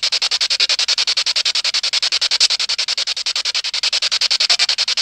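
Static hiss chopped into rapid, even pulses more than ten times a second, typical of a ghost-hunting spirit box sweeping through radio frequencies.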